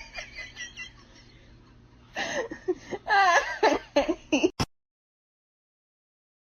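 A string of short, high-pitched cries that rise and fall in pitch, a few at the start and a quicker run from about two seconds in. The sound then cuts off abruptly into silence.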